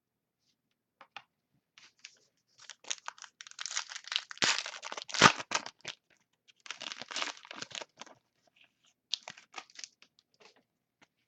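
A trading card pack wrapper being torn open and crinkled by hand: irregular crackling, loudest about four to five seconds in, with a second spell a couple of seconds later and a few short crackles near the end.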